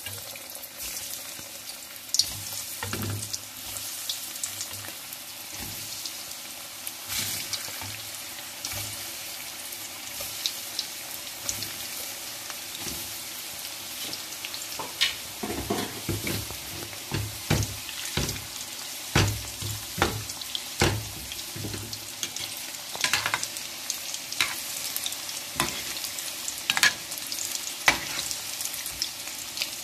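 Breaded potato cheese balls deep-frying in hot oil in a wok: a steady sizzle, with frequent sharp clicks and a few dull knocks, most of them in the middle.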